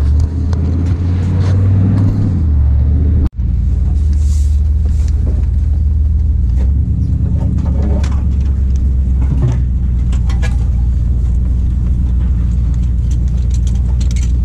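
Truck engine and drivetrain heard from inside the cab while driving a dirt track: a steady low drone with scattered knocks and rattles. The engine note drops about two seconds in, and the sound cuts out for an instant a little after three seconds.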